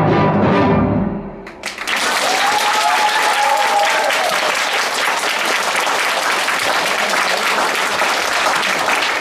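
A symphony orchestra's closing chord cuts off about a second and a half in, and a theatre audience breaks into steady, loud applause.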